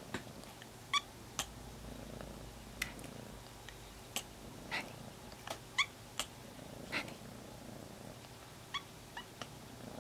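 Kitten meowing in a tiny, thin voice: a string of about a dozen short, high-pitched meows, with soft purring underneath.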